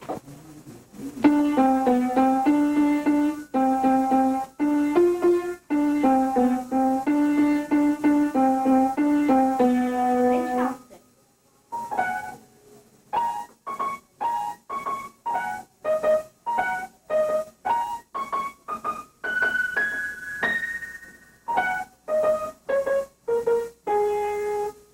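Piano keyboard playing two short tunes. The first is in chords and runs to about 11 seconds in; after a brief pause the second is a melody of single notes.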